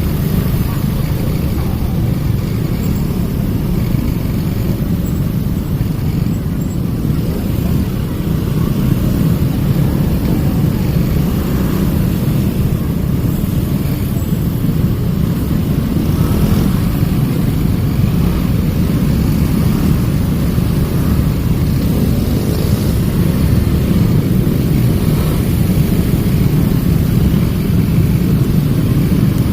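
Steady low rumble of busy street traffic, cars and motorcycles, with no fireworks bangs standing out.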